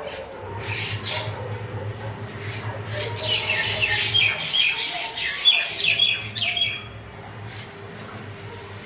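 Pet bird squawking: a brief harsh call about a second in, then a run of harsh squawks and short repeated chirps from about three seconds in until near seven seconds.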